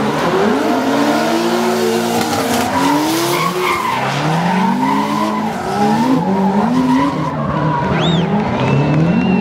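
Two drift cars sliding in tandem, engines revving hard with their pitch climbing and dropping again and again, over the steady screech of tyres sliding.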